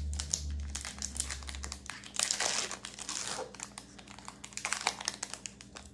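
Panini Prizm football card pack's foil wrapper being torn open and crinkled: a run of crackles, a longer ripping tear a little after two seconds in, and more crackling near the end.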